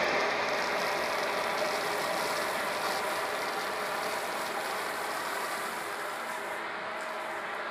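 Dyson cylinder vacuum cleaner running, a steady motor whine over a rush of suction, as its red hose nozzle sucks dry red lentils up off a rug. The sound eases off slightly as the nozzle is lifted.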